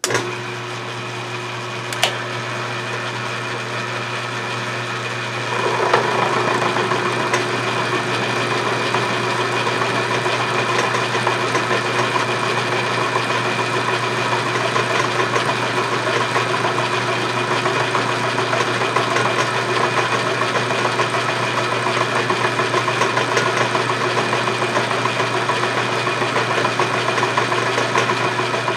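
Atlas horizontal milling machine running, its spindle turning an end mill in a shop-made Morse-taper holder. About five seconds in, the end mill starts cutting into a metal block, and the steady machine hum turns louder and rougher with the noise of the cut.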